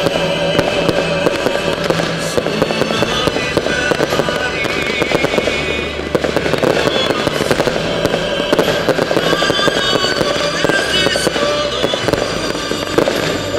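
Fireworks going off continuously in a dense stream of crackles and pops, over music playing with the display.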